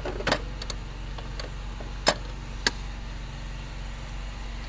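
Metal clicks and clinks of a ring spanner and brake line fittings being handled on a brake master cylinder: a short rattle near the start, a sharp clink about two seconds in and a lighter one just after, over a steady low hum.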